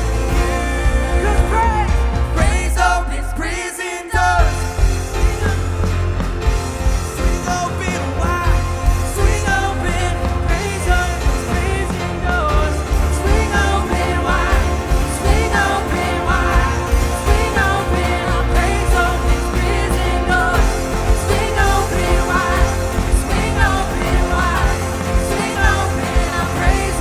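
Live church worship band playing a song with drums, bass, keyboards and guitars under singers leading the vocals. The deep bass and drums drop out for about a second around three seconds in, then come back in.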